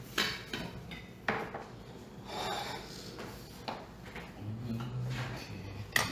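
Kitchen items being handled on a countertop: several sharp knocks as containers and utensils are picked up and set down, with rubbing and shuffling sounds in between.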